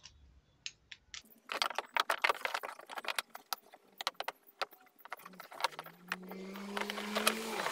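Irregular metallic clicking and rattling of a ratchet and socket working on the bumper's mounting bolts. In the last two seconds an engine runs up steadily in pitch and then drops.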